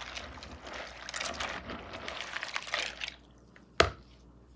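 Water poured into a bucket of dry hardwood fuel pellets, splashing for about three seconds. A single sharp knock follows near the end.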